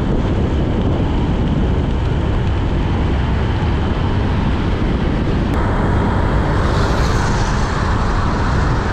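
Motorcycle riding at speed along a highway: a steady, loud rush of wind over the microphone mixed with engine and road noise. The hiss grows brighter about six seconds in.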